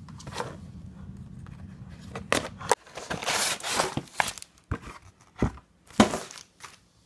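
Retail packaging of a toy booster set being opened and handled by hand: crinkling and rustling of card and plastic bags, with scattered clicks and knocks. A low hum underneath stops a little under three seconds in.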